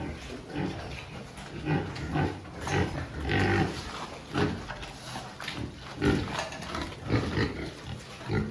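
Pigs calling: a string of short, irregular grunts coming every half second to a second.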